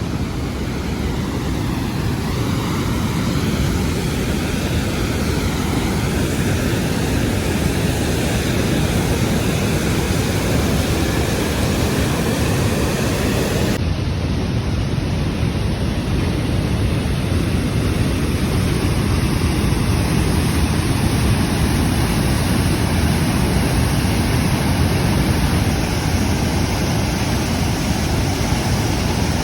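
Large waterfall rushing: a loud, steady roar of falling water, with a slight change in tone about halfway through.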